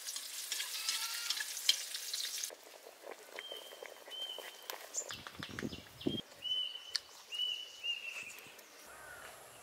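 Food sizzling and crackling as it fries in a wok, stirred with chopsticks, for the first two and a half seconds. Then it cuts to quieter sound with scattered clicks and a series of short high chirps repeating about every half second.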